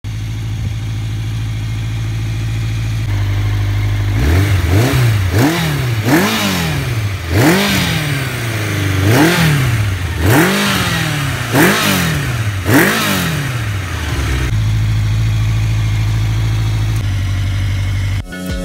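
Honda CB SevenFifty's air-cooled inline-four engine, running through a LeoVince 'Classic Racer' stainless steel exhaust, idling steadily, then revved in a series of about eight quick throttle blips, each rising and falling back, before settling back to idle.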